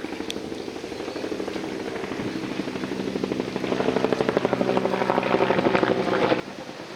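A motor engine running with a fast, even pulsing beat. It gets louder from about four seconds in, then drops away sharply near the end.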